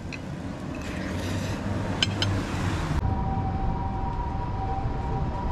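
A steady low outdoor rumble with a couple of light clicks about two seconds in. After about three seconds the sound changes, and a steady two-note electronic tone sits over the rumble.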